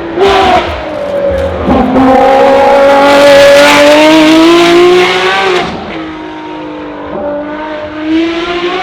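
Ferrari P80/C's 3.9-litre twin-turbo V8 accelerating hard, its pitch climbing steadily for several seconds, then falling away about six seconds in and running quieter before climbing again near the end.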